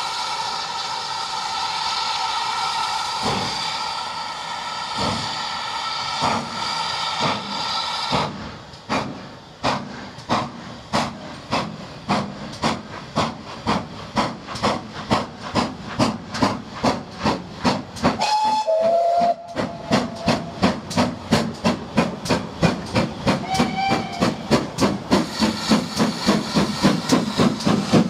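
GWR Manor class 4-6-0 steam locomotive 7827 'Lydham Manor' pulling away with a train. A steady whistling of steam cuts off about eight seconds in. The exhaust beats start slow and single, then quicken into a rapid, even chuff that grows louder as the engine comes close, with two brief squeals along the way.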